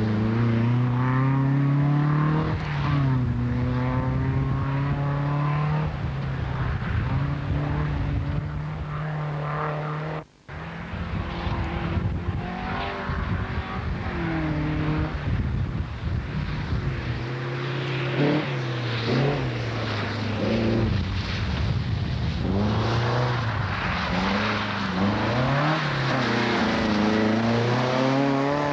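Rally car engines at full throttle, revving up and dropping in pitch again and again as the cars shift gear and pass by, with a brief break in the sound about ten seconds in.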